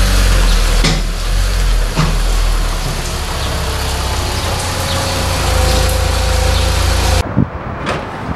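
Car engine running while the car drives, a steady deep rumble that cuts off suddenly about seven seconds in, followed by a few light clicks.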